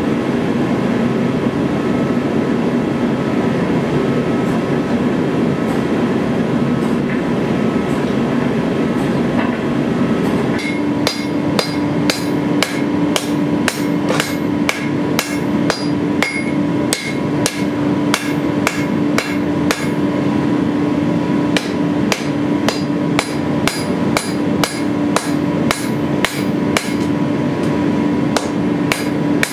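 A dense, steady mechanical noise from a forging machine working glowing steel, cutting off about ten seconds in. Then a hammer striking a red-hot sword blade on an anvil, about two blows a second, each blow ringing from the anvil.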